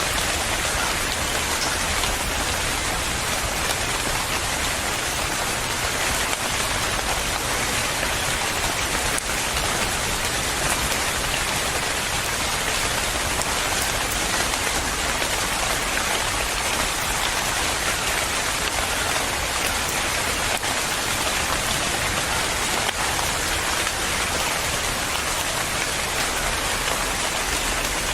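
Steady rain falling, an even hiss of rain on a surface with the patter of individual drops.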